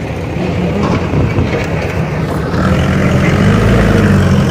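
A low engine drone that grows louder and steadier about two and a half seconds in.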